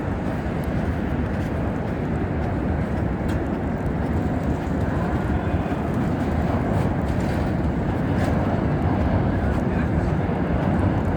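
Steady low rumble of outdoor city ambience with a few faint clicks.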